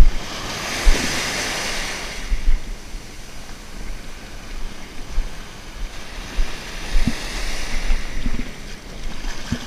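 Ocean surf breaking and washing up the shore, a loud surge of foam in the first couple of seconds and another swell near the end, with wind buffeting the microphone in low thumps.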